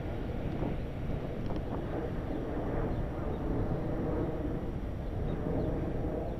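Wind buffeting the microphone of a camera on a moving bicycle, a steady low rush, with the hum of bicycle tyres rolling on asphalt and a few faint ticks.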